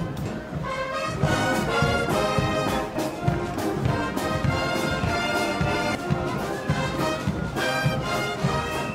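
School marching band playing brass music: trumpets, trombones and horns in chords over a low drum beat.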